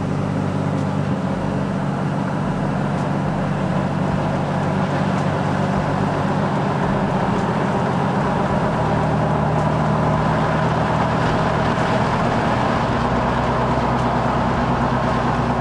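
Ram pickup's Cummins inline-six turbodiesel running under way, heard inside the cab with road noise, gradually getting louder. The engine note steps to a new pitch about halfway through and again near the end, as the automatic transmission shifts.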